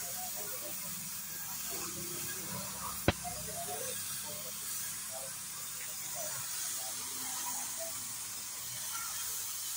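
Gravity-feed paint spray gun hissing steadily as compressed air atomises white paint onto a car body panel, with one sharp click about three seconds in.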